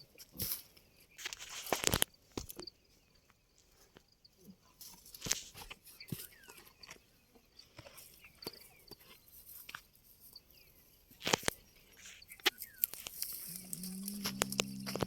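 Camels chewing and crunching dry fodder, with irregular crunches. Near the end, a low drawn-out call from a camel that drops in pitch as it fades.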